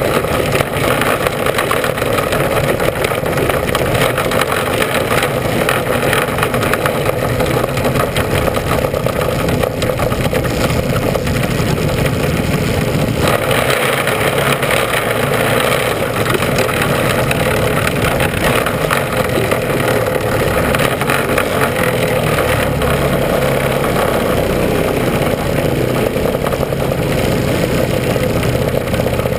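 Mini sprint race car's engine running, heard up close from an on-board camera as a loud, steady drone with no big rises or drops in pitch.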